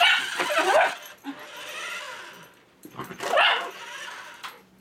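Miniature schnauzer vocalizing with wavering, pitch-bending cries, once in the first second and again about three seconds in.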